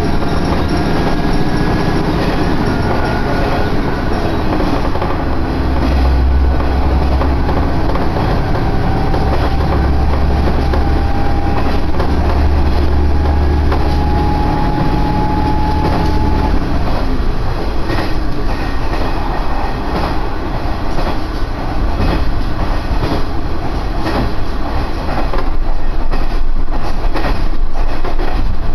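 Diesel railcar running along the line, heard from inside the car. A low engine drone carries a faint tone that rises slowly in pitch; about halfway through the tone stops and the car runs on with wheels clattering over the rails.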